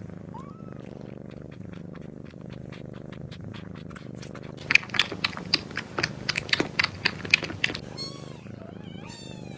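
Kitten purring steadily, with a quick run of sharp clicks about halfway through and a few faint, short high mews near the end.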